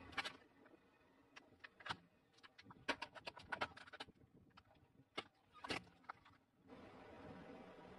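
A car tyre rolls over plastic cups filled with slime and crushes them: irregular sharp cracks and crunches of splitting plastic, thickest around the middle.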